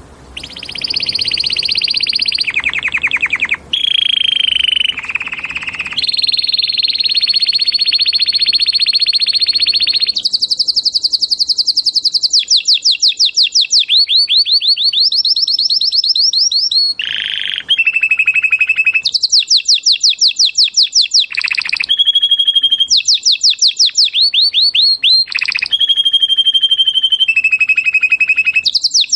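Canary singing loudly in a continuous run of tours. Each tour is a fast trill of one repeated note held for one to a few seconds, then the song jumps to a new pitch for the next, with a few lower rolling phrases.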